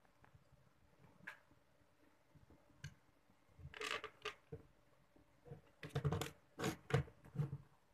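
Rustling and scraping of cloth and a hand brushing close to the phone's microphone, in short irregular bursts that come thickest in the second half, over a faint steady hum.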